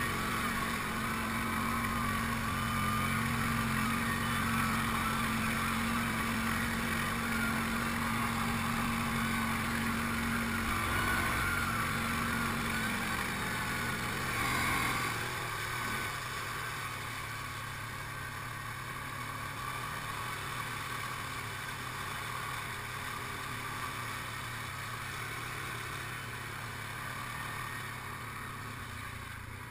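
ATV engine running steadily while the quad drives through flood water on a dirt track, water splashing around the wheels. About halfway through the engine note drops and the sound eases a little.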